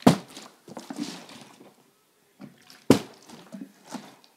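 Partly filled plastic water bottle thudding down on a carpeted floor twice, about three seconds apart, with the water sloshing inside as it is handled between the flips.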